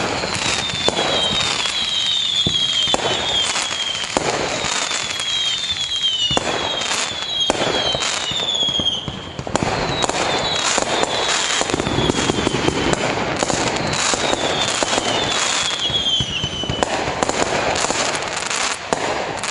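Fireworks display: a dense, continuous crackling with many sharp bangs of shells bursting, and repeated high whistles falling in pitch. It eases off near the end.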